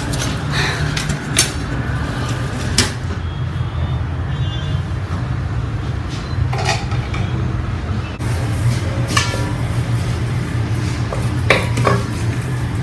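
Kitchen clatter: a utensil drawer opening and metal pots and utensils clinking, with several sharp knocks spread through, over a steady low hum.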